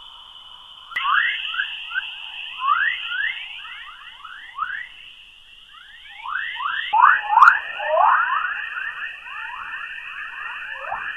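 Earth's electromagnetic plasma waves recorded by a NASA spacecraft and converted to audio, the 'chorus' of the magnetosphere: many quick rising chirps overlapping like a dawn chorus of birds, over a steady high tone. The chirps grow denser and louder about seven seconds in.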